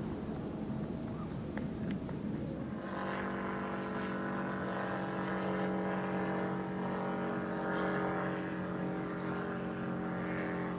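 Outdoor hiss for about the first three seconds, then a steady engine drone from a passing powered craft offshore, a low hum with propeller-like pitched tones. It swells slightly and cuts off abruptly at the end.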